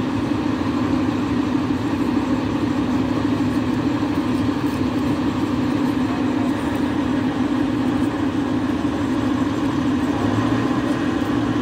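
TU7A narrow-gauge diesel locomotive idling at a standstill, a low, even engine hum.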